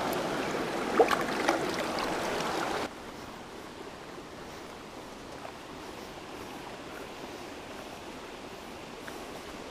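Small creek running over rocks, with a few sharp knocks about a second in. Near three seconds in the rush drops suddenly to a fainter, steady sound of the water.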